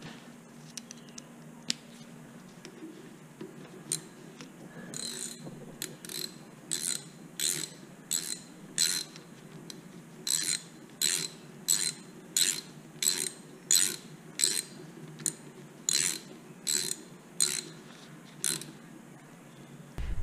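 Hand socket ratchet clicking in short repeated strokes, roughly one and a half a second, as the bottom bolt of a Honda CRF110 front fork leg is tightened during reassembly. The strokes start about five seconds in, pause briefly near the middle and stop a little before the end.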